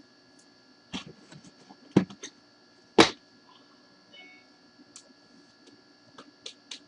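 Trading cards and their packaging being handled on a table: three sharp taps about a second apart, the third the loudest, then a few light clicks near the end.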